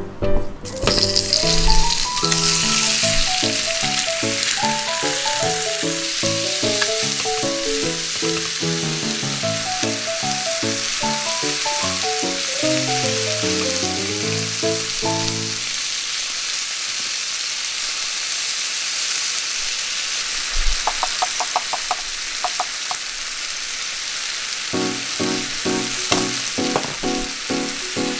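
Chicken pieces frying in hot oil in a rectangular nonstick pan, a steady sizzle that rises sharply just after the start as the meat goes in.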